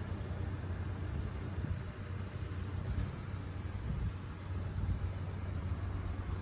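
Steady low rumbling noise with no distinct engine note, and a single sharp click about three seconds in.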